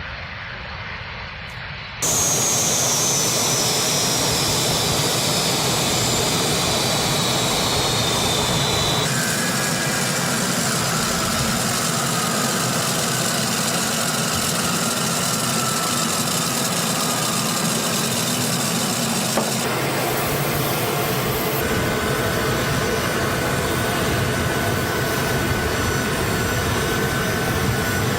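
Aircraft turbine engine running loud and steady, with a high whine gliding slowly down in pitch. The engine sound starts suddenly about two seconds in and shifts abruptly three times.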